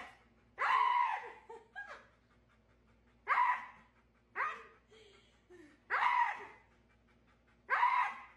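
Husky vocalising in a string of about six short howling calls, roughly a second apart.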